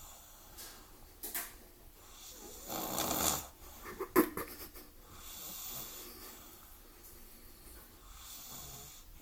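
A sleeper snoring in uneven breaths: a long loud rasping snore about three seconds in, a sharp snort just after four seconds, then softer snores.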